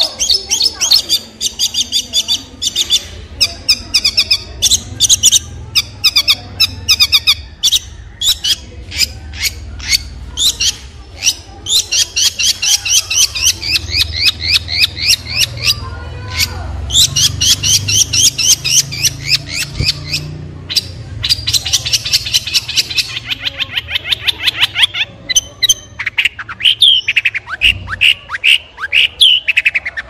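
Long-tailed shrike singing: rapid runs of high notes, about ten a second, in bursts of a few seconds with short gaps between them. Near the end the notes come slower and slide downward.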